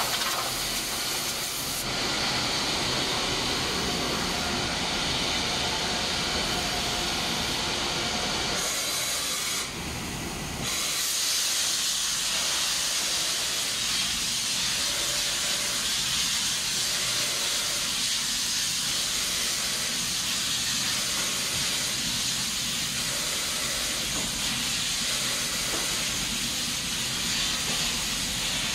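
Compressed air hissing steadily from a hand-held air lance, blowing leftover powder off the booth walls during a powder-coating colour change. The hiss dips briefly about ten seconds in and comes back brighter.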